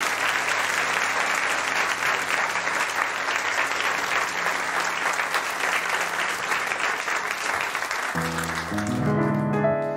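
Audience applauding, then about eight seconds in a piano comes in with sustained chords that ring on and fade.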